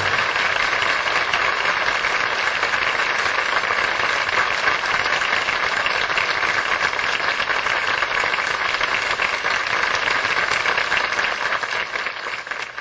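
Audience applauding steadily, a dense crackle of many hands clapping, fading out near the end.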